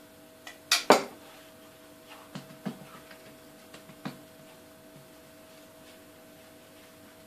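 Metal spoon clinking against a dish of melted butter and oil: a sharp double clink about a second in, then a few lighter taps.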